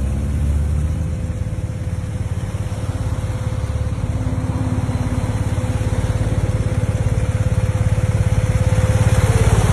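Motorcycle engine running steadily while riding on the open road, with wind noise on the microphone.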